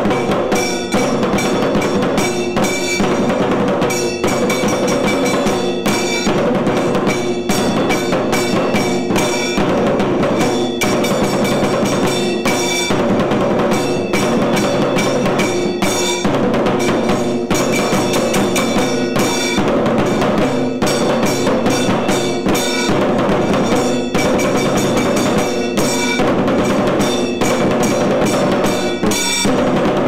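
Tiru Kailaya Vadyam temple percussion: two barrel drums beaten in a fast, unbroken rhythm, with a ringing metallic clang of hand cymbals over the drumming.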